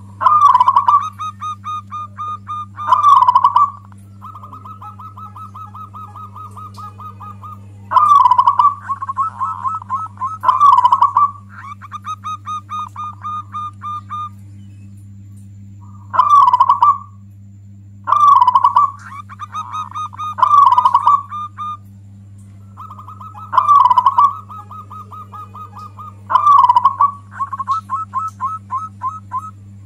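Zebra dove (perkutut) singing its territorial cooing song. Loud rolling coos come every two to three seconds, linked by runs of rapid, softer staccato notes, with a short break in the middle. A steady low hum sits underneath.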